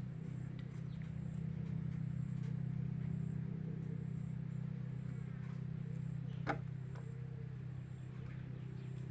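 Steady low hum of a running motor, with one sharp click about six and a half seconds in.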